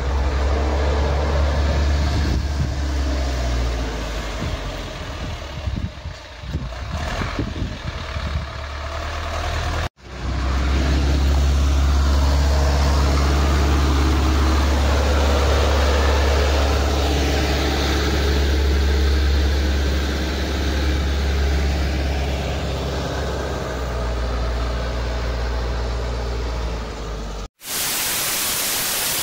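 Zetor 6718 tractor's diesel engine running steadily as it pushes snow with a front plough blade. Near the end it cuts to a loud burst of TV-static hiss.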